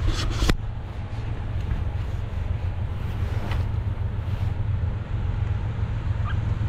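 Wind buffeting the microphone in a steady low rumble, with a few sharp clicks in the first half-second and a brief faint rising chirp near the end.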